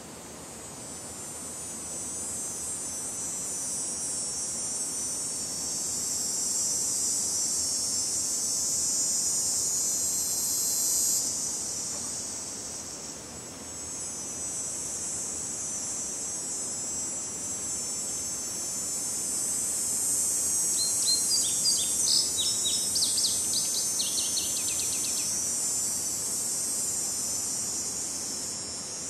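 Insects buzzing in a steady high-pitched chorus that swells and fades. About twenty seconds in, a bird calls in a quick run of short falling notes.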